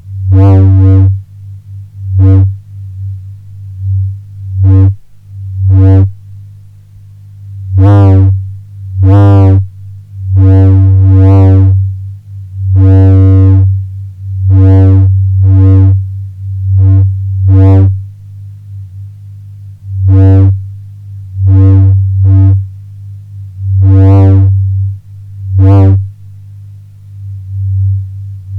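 Homemade lightsaber sound effect: a steady low electric hum with about seventeen swinging swells, each a brief rise and fall in pitch and loudness, at irregular intervals.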